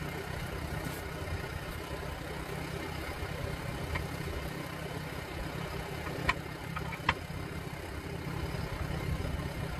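Two short sharp metal clinks, about six and seven seconds in, from steel tire irons knocking against the rim of a large backhoe tire as the bead is pried off. Under them runs a steady low rumble like an idling engine.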